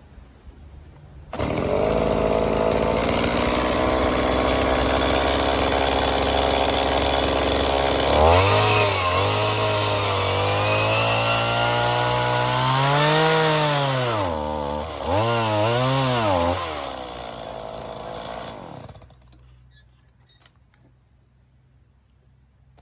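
Stihl MS170 two-stroke chainsaw on an Alaskan chainsaw mill, ripping along a log. It comes in suddenly and runs steadily under load for several seconds. From about eight seconds in its pitch swings up and down in several revs, then it winds down and stops a few seconds before the end.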